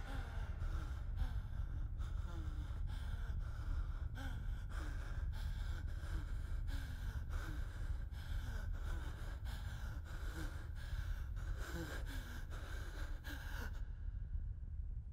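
A man panting hard: short gasping breaths, each with a brief falling voiced note, coming about every two-thirds of a second over a steady low rumble. The gasps stop a little before the end, leaving only the rumble.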